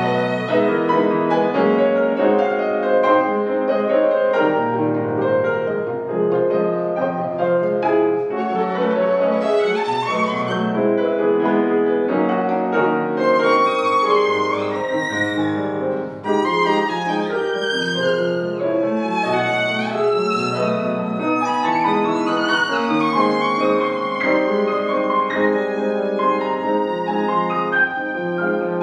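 Violin and grand piano playing together without a break. The bowed violin carries the melody over the piano accompaniment.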